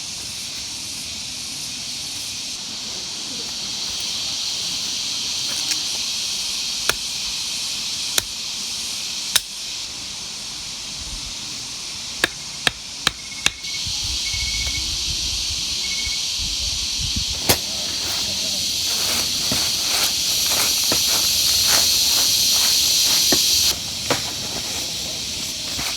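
Steady hiss of rain with scattered sharp knocks, including a quick run of four about twelve seconds in. The hiss grows louder in the second half and drops suddenly near the end.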